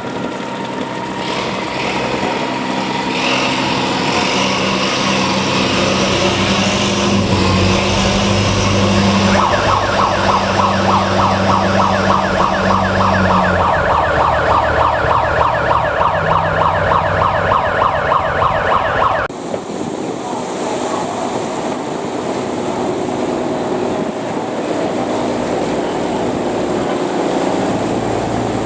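Boat engines running steadily and loudly. From about ten seconds in, a fast, buzzing, higher-pitched engine joins in; the sound changes abruptly a little after halfway, then goes on steadily.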